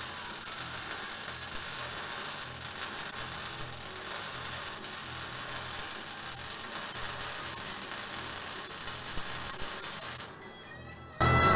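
Electric arc welding on a steel tube frame: a steady sizzling hiss that stops about ten seconds in. Music starts just before the end.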